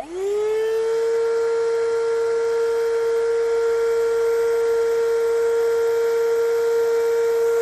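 Electric air pump for an inflatable kayak switching on: its motor spins up with a quick rising whine in the first half second, then runs at a steady pitch.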